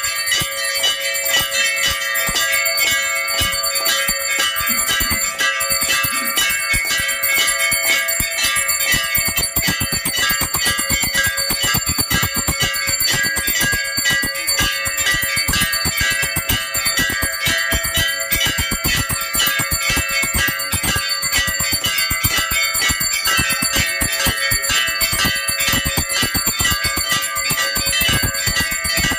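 Temple bells rung continuously for the aarti, in quick, even strokes without a break, their ringing overlapping into a steady clangour.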